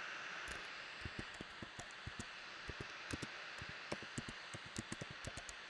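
Typing on a computer keyboard: a quick, irregular run of key clicks, over a steady background hiss.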